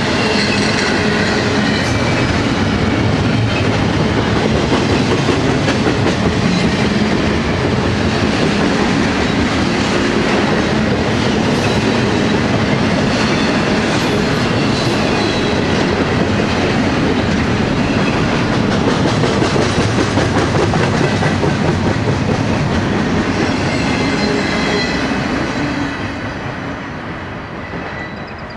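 Double-stack intermodal container cars rolling past on jointed track, a steady rail rumble and clickety-clack of wheels with faint wheel squeal. The sound dies away over the last few seconds as the end of the train goes by.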